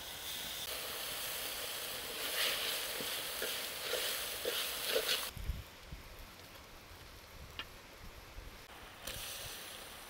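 Hot wok sizzling loudly as liquid is poured onto caramelising sugar over a wood fire. About five seconds in it cuts off, giving way to a few dull knocks of a cleaver on a wooden chopping block, and the sizzling comes back near the end.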